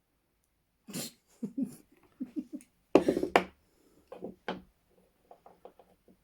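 A person's breathy, non-speech voice sounds in short irregular bursts, like stifled laughter and sharp exhales, loudest about three seconds in, with quicker faint bursts near the end.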